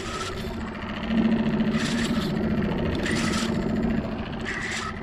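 Spinning reel cranked steadily, winding in line on a hooked fish: a low steady whir, with a short rasp repeating about every second and a half.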